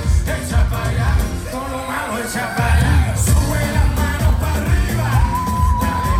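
Live Latin dance-pop song played loud over a concert sound system, with a heavy pulsing bass beat and vocals, heard through a phone's microphone in the audience.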